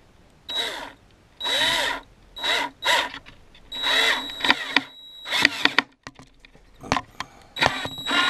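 Black & Decker EGBL108 10.8 V cordless drill-driver driving a large screw into wood without a pilot hole, in about seven short bursts; the motor whine rises and falls in pitch with each trigger pull. The bit keeps jumping out of the screw head.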